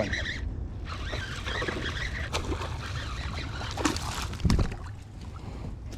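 Steady low rumble with water sloshing and a few short splashes near the middle, from a hooked bass being fought beside a kayak.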